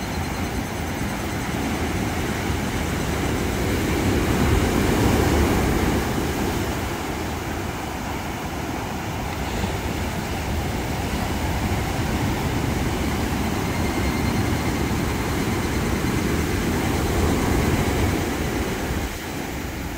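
Sea surf breaking and washing up a sandy beach, a steady rush that swells about four seconds in and again near the end. Faint higurashi (evening cicadas) call high in the background, mostly in the first couple of seconds.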